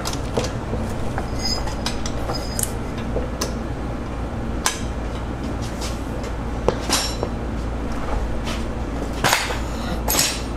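Metal clicks and clinks of a wrench and socket working the cylinder head bolts loose on a 2.4 MultiAir engine, with a few sharper knocks scattered through, over a steady low hum.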